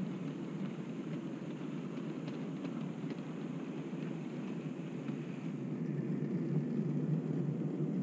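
Steady low rumble of OO-gauge model goods vans rolling past on the track close by, growing a little louder in the last couple of seconds.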